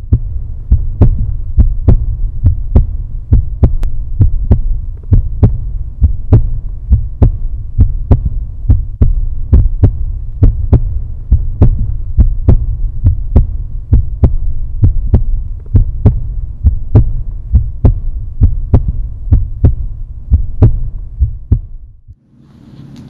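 Deep, steady low drone with regular heartbeat-like thumps about twice a second, a soundtrack heartbeat effect; it cuts off shortly before the end.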